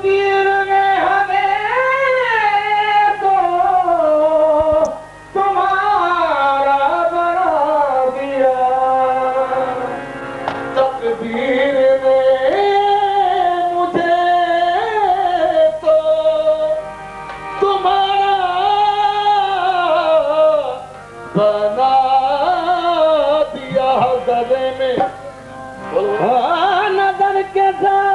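Qawwali music: a male voice singing long, winding melodic phrases over harmonium, with short breaks between phrases.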